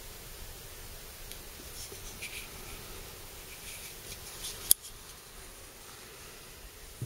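Faint scratchy rubbing and handling of a steel kitchen knife at a knife sharpener, broken by one sharp click about two-thirds of the way through.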